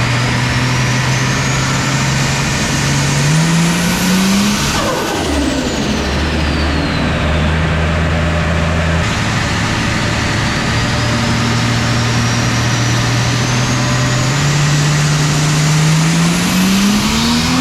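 Turbocharged RB30ET straight-six in a VL Commodore making two pulls on a dyno. Each time the revs and a high turbo whistle climb steadily, then the throttle shuts and the whistle sweeps down with turbo flutter: once about five seconds in, and again at the end after a longer pull.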